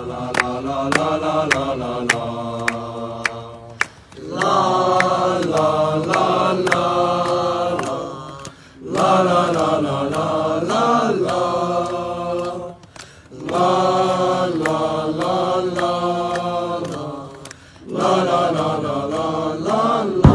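Chanted song: one melody sung in phrases of about four seconds, each ending in a short break, over a regular click or clap about two to three times a second.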